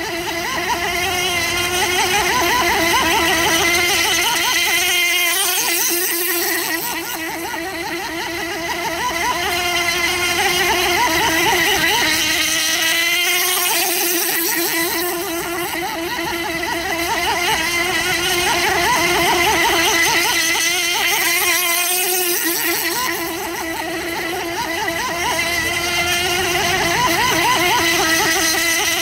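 Model outrigger boat's .28 glow engine running flat out with a high, buzzing tone, swelling and fading about every eight seconds as the boat circles past, with brief dips in pitch twice as it turns.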